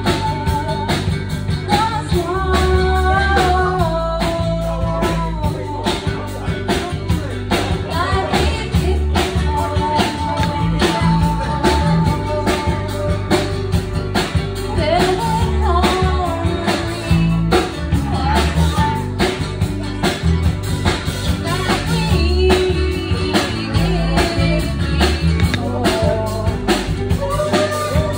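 Live band playing a rock-style song on acoustic and electric guitars, with a melody line over a steady low beat.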